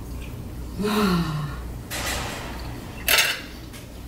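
Table sounds of a meal: cutlery clinking and scraping on plates, with a short bursty scrape about three seconds in. About a second in, a brief hummed voice sound falls in pitch.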